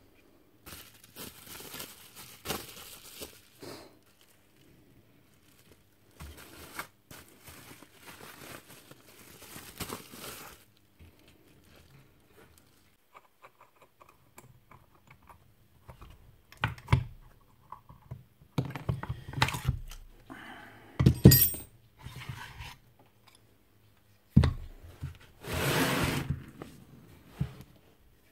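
Hands scooping and wiping thick grease out of a magnetic drill's aluminium gear housing, with rustling, scraping and a few sharp knocks as metal parts are handled and set down on the bench.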